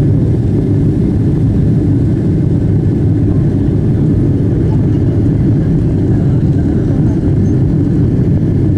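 Steady, loud low rumble of a Boeing 777-200ER's twin jet engines and airflow, heard inside the passenger cabin during the initial climb after takeoff.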